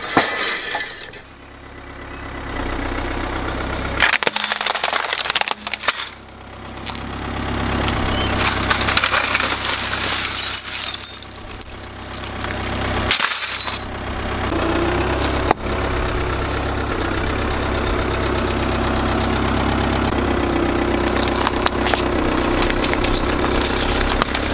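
A car tyre rolling over a plastic wall clock, crushing it: the glass face cracks and shatters and the plastic rim snaps, in several takes. Through the latter part there is a steadier running sound from the car.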